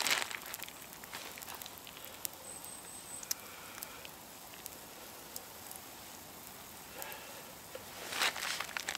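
Wood campfire crackling with small sharp pops over a steady hiss, with pancake batter sizzling on the hot rock it is poured onto. Two louder rushes of hiss come, one at the start and one about a second before the end.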